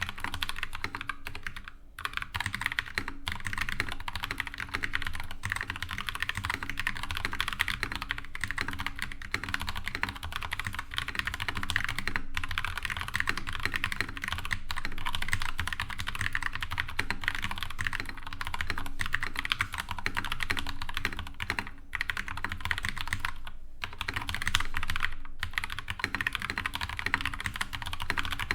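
Continuous typing on a Genesis Thor 404 TKL mechanical keyboard with tactile Kailh BOX Brown V2 switches and stock stabilizers: a dense stream of key presses with a few short pauses.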